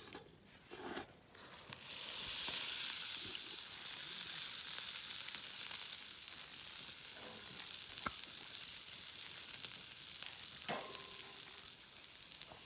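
Food sizzling and frying on a hot pan or grill, starting suddenly about two seconds in, loudest at first and then settling to a steady sizzle. A few small knocks come before it, and there is a sharp click near the middle.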